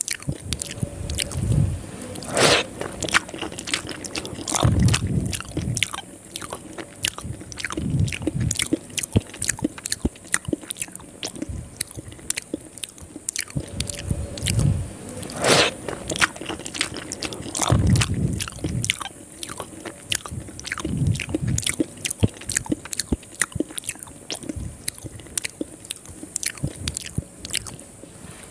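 Close-miked eating of soft rice vermicelli in sweet coconut milk: wet chewing and squishing with many quick lip smacks and mouth clicks. Lower, fuller chewing spells come every few seconds, and two sharper crackles stand out, one a few seconds in and one about halfway.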